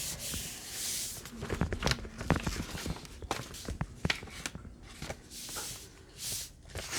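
Hands pressing and rubbing a freshly glued paper down onto a journal page: soft rubbing swells of paper with scattered light taps and clicks.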